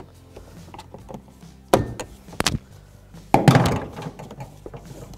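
Plastic retaining clips of a dashboard top trim panel snapping loose as the panel is pried up: two sharp snaps a little under a second apart, then a louder, drawn-out crackle of plastic about three and a half seconds in.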